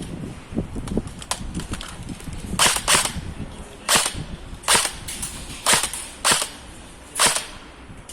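Airsoft gun firing single shots: about seven sharp pops at uneven intervals, starting a little over two seconds in.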